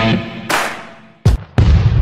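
The end of the intro music: a held rock-guitar chord fades out, followed by a few loud percussive hits, the last of which rings on.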